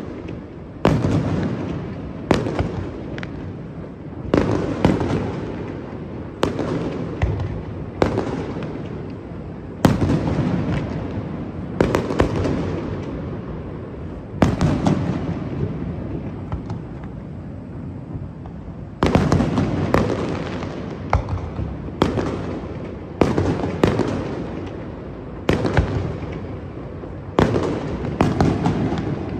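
Aerial firework shells bursting in quick succession, a sharp bang every second or two, each trailing off in a long rolling echo. There is a short lull about halfway through before the bangs resume.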